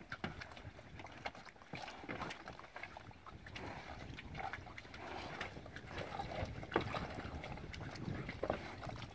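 Cattle drinking from an automatic ball drinker: water sloshing and slurping, with scattered clicks and knocks.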